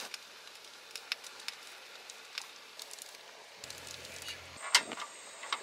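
Scattered faint clicks and knocks over a low hiss, with one sharper knock about four and a half seconds in.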